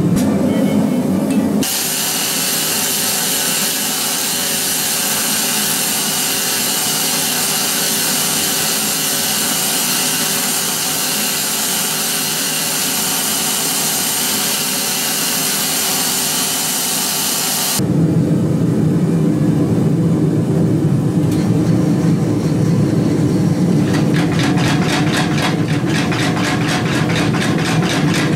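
A loud steady hiss runs for about sixteen seconds and cuts off abruptly. Then comes the low steady running of a mechanical power hammer, which starts striking in quick even blows a few seconds before the end.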